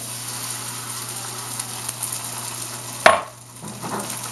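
Beaten egg poured into a hot buttered pan of peas and corn, sizzling steadily. About three seconds in there is a single sharp knock, and the sizzle dips briefly after it.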